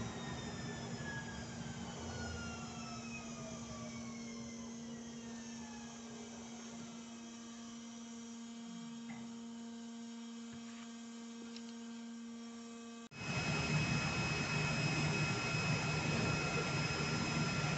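CNC oscillating-knife cardboard cutting machine running: a steady hum with whines that fall slowly in pitch, as of motors winding down. About thirteen seconds in it cuts abruptly to a louder, steady machine noise with a high, even whine.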